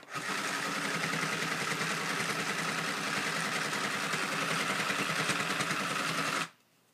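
Battery-powered Sew Cool toy sewing machine running, its small motor driving the felting needles in a steady fast chatter as they punch through layered felt to mat it together without thread. It stops suddenly near the end.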